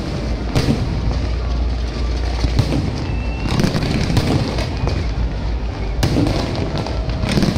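Aerial fireworks going off overhead: several loud bangs at irregular intervals over a continuous crackle of many shells bursting.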